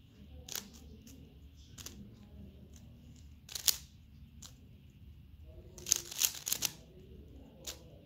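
Magnetic speedcube being turned fast by hand: sharp plastic clicks as the layers snap into place, coming singly every second or two, with a quick run of turns about six seconds in.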